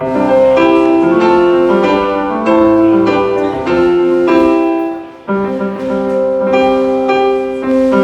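Piano chords played on a stage keyboard through the PA: a run of held chords changing every half second or so, with a brief break about five seconds in.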